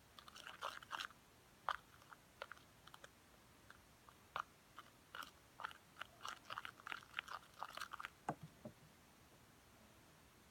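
Wet, sticky slime mixture being worked and squished, making irregular small crackles and clicks, with a couple of softer thumps near the end.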